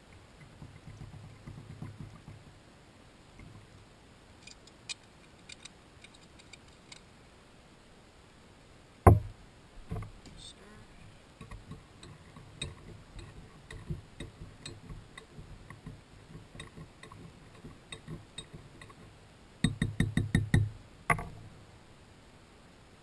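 Scattered clicks and knocks, with one sharp knock about nine seconds in and a quick run of about a dozen knocks near the end, over a faint low murmur.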